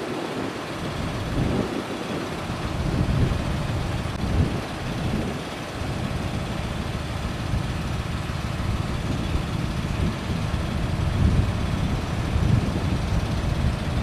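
Heavy vehicle engine running at a steady idle, a low continuous rumble with some unsteady swells.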